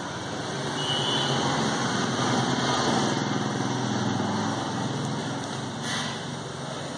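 A motor vehicle's engine going past, growing louder over the first couple of seconds and fading toward the end, over steady background noise.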